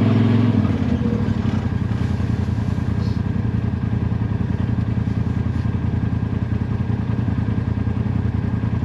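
Side-by-side UTV engine running as the machine drives along the trail: a steady drone that turns into an even, rapid chugging about half a second in.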